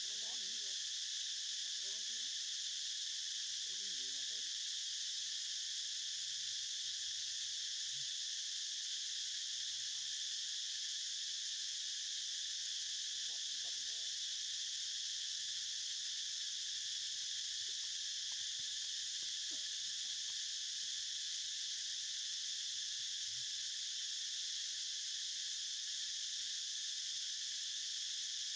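Steady insect chorus: a dense, unbroken high-pitched drone that holds an even level throughout.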